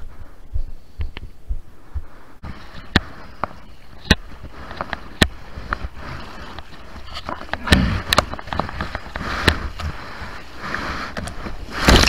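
Water splashing and sloshing around a surfboard being paddled through small surf, with many sharp knocks and taps of water and hands on the camera housing. The splashing grows louder about halfway through, with a big splash of spray near the end.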